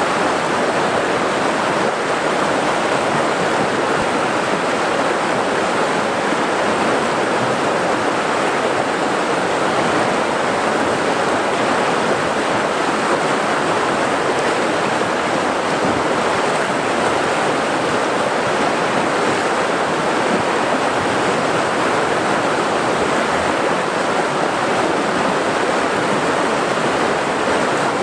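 River rapids: turbulent white water rushing over rocks, a steady, even rush of noise with no swells.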